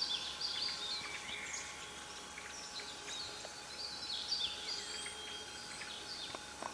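Small birds chirping and calling in woodland: many short, high chirps, several falling in pitch, over a faint outdoor hiss.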